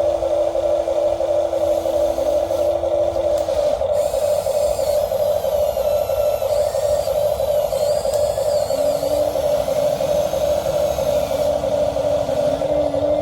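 Small electric motors and gearboxes of radio-controlled construction machines whining steadily, with weaker tones that shift up and down in pitch as the machines work.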